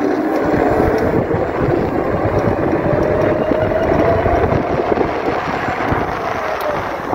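Electric bike motor whining under power, its pitch rising steadily for about four seconds as the bike gathers speed and then levelling off, over a steady rush of wind on the microphone.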